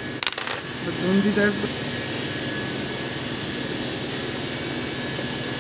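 Steady machine-like background noise with a faint high whine, broken near the start by a short clatter of handling and a brief bit of voice about a second in.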